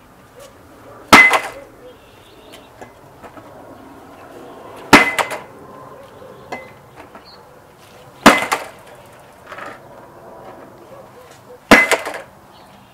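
A bat smashing down on a wooden skateboard deck lying on pavement: four hard cracking blows a few seconds apart, each with a brief ring after it.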